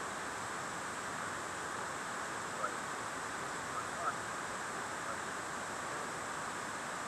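Steady, even background hiss, with a few faint short sounds around the middle.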